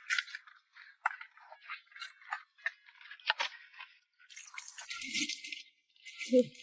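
Irregular clicking and rattling of live crabs being handled and sorted, with a couple of short rustles near the end.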